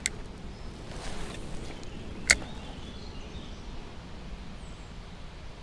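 A cast with a spinning rod and reel: a light click at the start, a soft swish of the cast about a second in, then one sharp snap of the reel's bail closing just past two seconds, the loudest sound. A steady outdoor background noise runs underneath.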